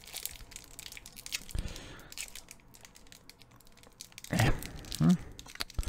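Foil booster pack wrapper being crinkled and torn open by hand: a run of small crackles and rustles, with two louder rustles about four and five seconds in.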